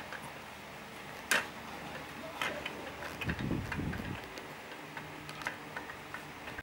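Plastic toys on an infant bouncer's toy bar clicking and clacking as they are batted and spun, in several irregular sharp clicks, the loudest about a second in. A brief low sound comes about three seconds in.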